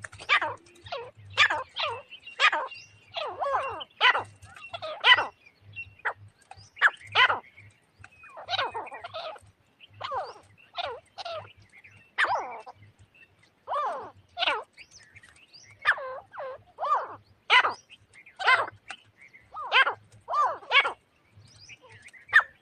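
Francolin (teetar) calling: short, harsh notes repeated about one to two a second in uneven groups.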